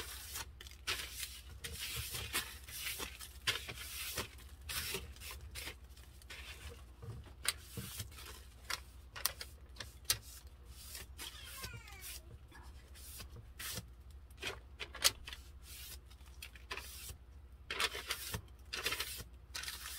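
Irregular rustling, rubbing and light taps as hands handle and clean up tumbler-crafting supplies. A faint falling squeak comes about eleven seconds in.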